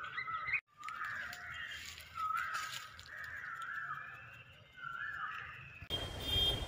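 Birds calling outdoors: a run of short, harsh calls repeated every second or so, with a brief break in the sound just after the start.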